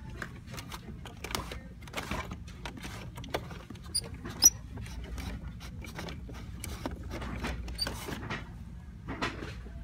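Fingers rubbing and pressing the soft rubber track of a Driven by Battat toy bulldozer in its cardboard box: irregular scratching and clicking, with one sharp click about four and a half seconds in, over a low steady hum.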